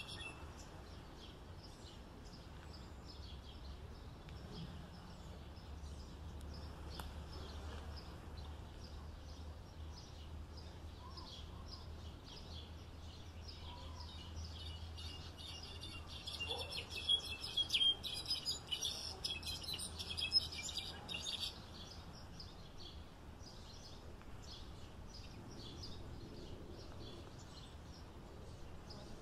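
European goldfinch singing, a rapid twittering song that is densest and loudest a little past halfway through, over a steady low background noise.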